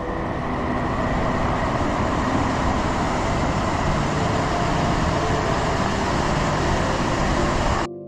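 Rushing water of a river waterfall pouring over wide rock ledges: a loud, steady rush that cuts off abruptly near the end.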